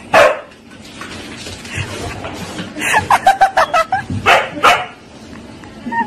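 Siberian husky barking in short, sharp barks: one just after the start, a quick run of them about three seconds in, then a few more.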